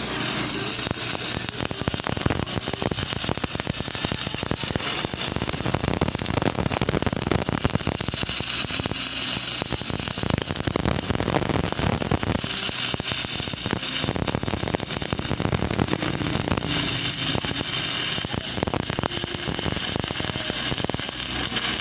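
Stick welding arc burning a 2.6 mm electrode rod, a steady dense crackling that holds without a break. This is a load test of a freshly serviced arc welding machine, running one rod all the way down.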